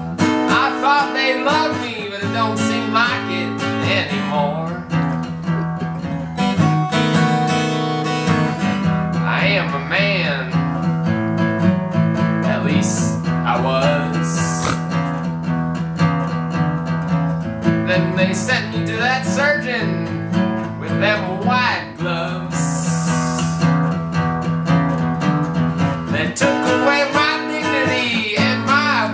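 Acoustic guitar played in a blues, picked and strummed, with a man singing over it in phrases.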